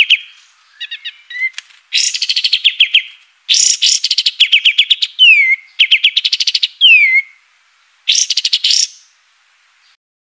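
Kapas tembak, a triller, singing loud bursts of rapid trilled notes with short pauses between them. Some bursts end in a quick downward-sliding whistle. The song stops about nine seconds in.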